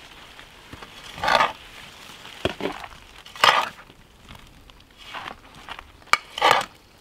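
Metal hand trowel scooping loose soil and tipping it into a plastic plant pot: three short, scraping scoops about two seconds apart, with a few small knocks between them.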